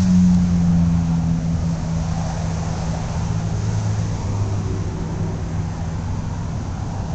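Steady low engine hum, its pitch dropping slightly about a second in.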